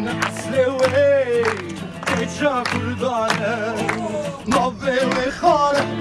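People singing a song together, with hand claps keeping the beat.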